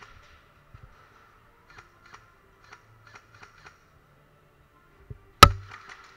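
Faint, scattered clicks of airsoft fire in an indoor arena, then one loud sharp crack about five seconds in.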